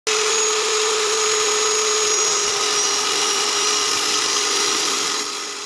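Electric angle grinder running at full speed with a steady high whine, fading out near the end.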